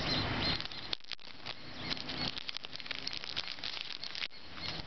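Thin clear plastic protective film being peeled off a compact camera, crinkling and crackling with many small clicks.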